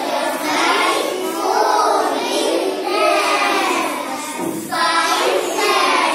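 A group of young children chanting a nursery rhyme together in a sing-song voice, phrase after phrase.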